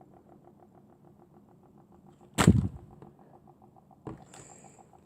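A single sharp pop about two and a half seconds in, as slime is pressed and the trapped air bursts through it, followed by a smaller click near the end. A faint, rapid, even ticking runs underneath.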